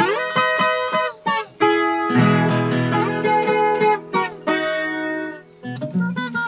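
Viola caipira (Brazilian ten-string folk guitar) playing an instrumental passage of sharp picked notes. Fuller, lower notes come in about two seconds in.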